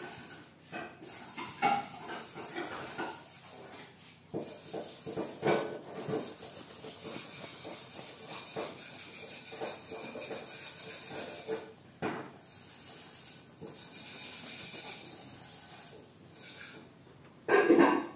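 A kitchen knife sawing back and forth through a loaf of bread, a dry, irregular rasping of the blade through the crust. A single louder knock comes shortly before the end.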